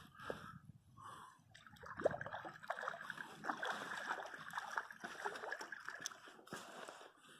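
A hooked fish thrashing and splashing at the surface of a shallow river as it is played in, a busy run of irregular splashes from about two seconds in until near the end.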